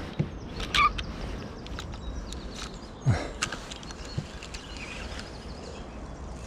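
Scattered light clicks and knocks from a spinning rod and reel being handled, ahead of a cast.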